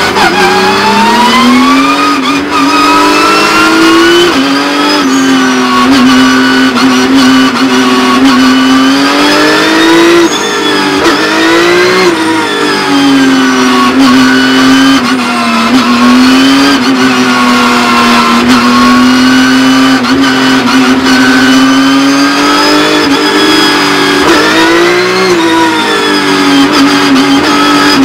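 Porsche 911 GT3 Cup race car's flat-six engine heard onboard at racing speed, its pitch climbing under acceleration and dropping at each gear change and lift, over and over.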